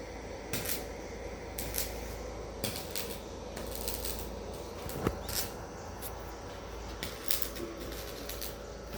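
Electric arc welding: irregular crackling pops and clicks over a steady low hum.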